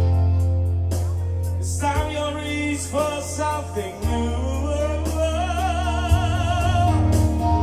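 Live pop ballad: a male voice sings long held notes with a strong vibrato over an accompaniment with a steady, deep bass and sustained chords. The voice comes in about two seconds in.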